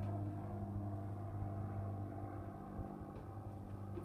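Flying boat's engine running in flight: a steady low hum with a clear pitch that slowly fades as the plane moves away.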